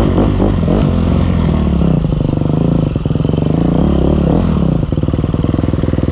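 2012 KTM 250 XC-F's single-cylinder four-stroke engine running under riding, freshly rebuilt, its revs rising and falling with the throttle and dropping to low revs about three seconds in before picking up again.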